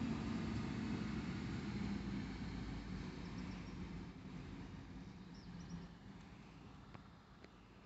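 A delivery box truck's engine hums steadily as the truck drives past, then fades gradually into the distance.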